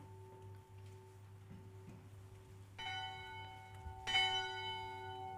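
A bell struck twice, about a second and a half apart, each strike ringing on with many overtones.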